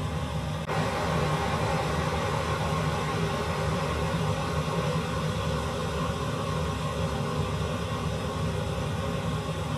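Steady rushing noise of a gas stove burner running under a wok of boiling tomato egg soup.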